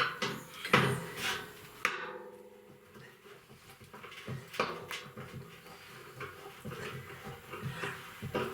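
Irregular metal knocks and clanks of tools as a bolt on a barrel stove is being cranked tight, with sharper knocks about one and two seconds in and again near the middle.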